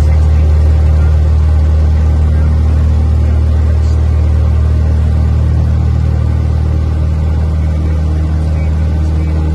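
Single-engine light plane's piston engine and propeller at takeoff power during a soft-field takeoff roll, heard inside the cabin as a loud, steady low drone.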